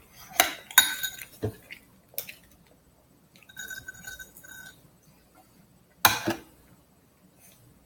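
Dishes and utensils clinking and knocking, with a short pulsing ringing tone midway and one loud knock about six seconds in.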